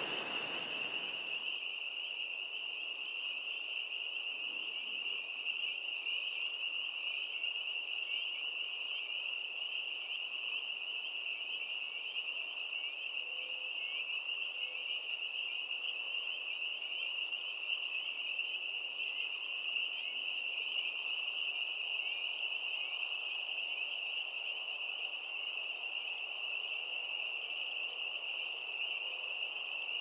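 A steady, high-pitched chorus of many small calling animals, with fine chirps flickering within it. A rain-like hiss dies away about a second and a half in.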